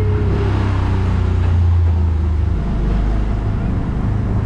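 Autopia ride car's small gasoline engine running steadily as the car drives along. About two and a half seconds in its pitch drops lower, as if easing off the throttle, then picks back up near the end.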